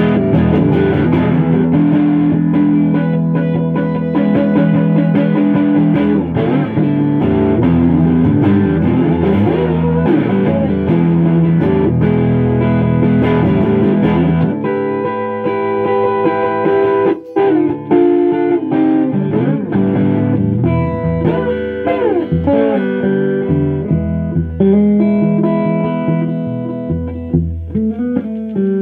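Les Paul-style solid-body electric guitar played without singing: sustained chords and single-note lines, with some notes bent in pitch. About halfway through the deep low notes drop away and the playing goes on lighter.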